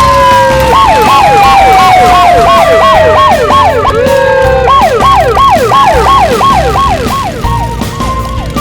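Siren sound effect: a fast wail that rises and falls about three times a second, over a long tone sliding slowly down in pitch, with a low repeating beat underneath.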